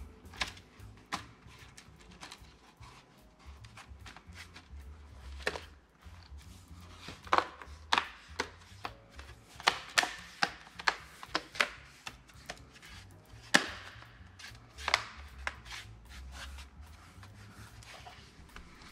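Irregular sharp clicks and knocks of hands working on the hardware of a Dell Latitude 5590 laptop, most of them in the middle of the stretch, over faint background music.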